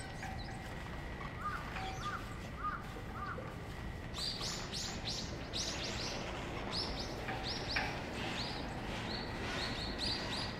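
Small birds chirping. Four short arched notes come about two seconds in, then quick series of high-pitched chirps from about four seconds in. Under them run a steady low rumble and a faint steady high tone.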